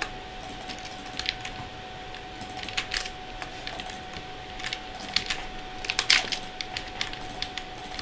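Computer keyboard keys and mouse buttons clicking irregularly in short clusters, the loudest cluster about six seconds in, as values are copied and pasted with shortcuts. A faint steady tone hums underneath.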